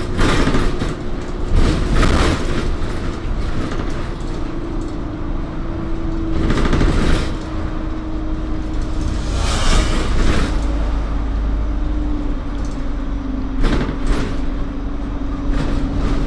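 Engine and road rumble heard from inside a moving bus. The engine note shifts up and down several times, and a few brief rushing sounds pass, the loudest about ten seconds in.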